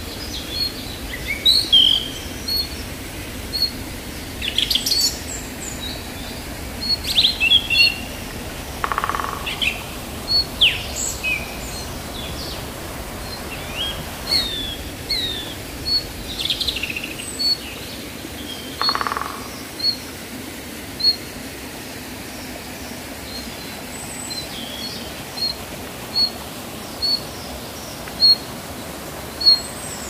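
Forest birds calling: one repeats a short high chirp about once a second while others add varied chirps and whistles, and a lower call comes twice. Beneath them runs the steady rush of a small waterfall.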